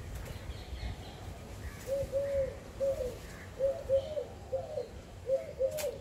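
A dove cooing: short, soft, arched notes in twos and threes, starting about two seconds in and repeating to the end, over a low background rumble.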